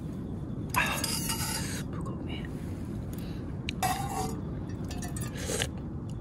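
Someone eating ramen from an aluminium camping pot with a spoon: slurping the noodles about a second in and again about four seconds in, with the spoon scraping and clinking against the pot.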